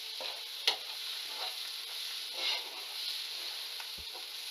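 Thick onion-and-masala paste sizzling in oil in a nonstick frying pan as a steel spoon stirs and scrapes through it, with a sharp click about a second in. The masala is being sautéed until the oil separates.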